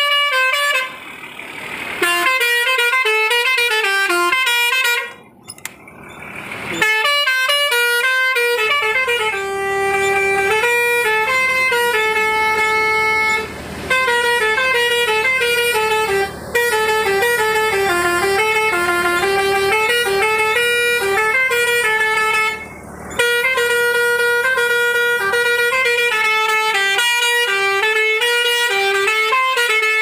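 Truck's musical horn playing tune after tune, its notes stepping up and down in pitch, with a short break about five seconds in and brief pauses between later tunes.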